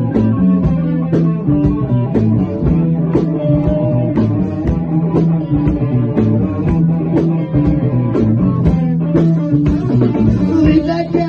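Live band jamming: electric guitar over a drum kit keeping a steady beat, with held low notes underneath.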